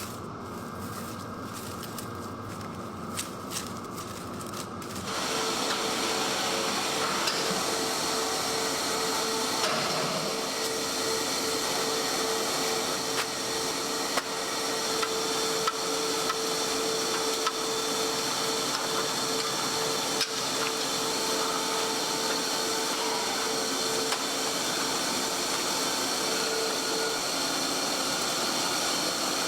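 A meat-processing machine starting up about five seconds in and running steadily, with a steady hum over its running noise that drops out near the end.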